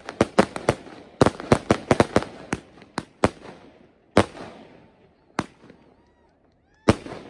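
Aerial fireworks bursting: a quick run of sharp bangs that thins out after about three seconds, then three single bangs a second or more apart as the display winds down.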